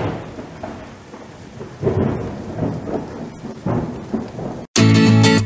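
Thunderstorm sound effect: rolling rumbles of thunder, a few swells a second or so apart, over a steady hiss of rain. It cuts off abruptly near the end and loud guitar music starts.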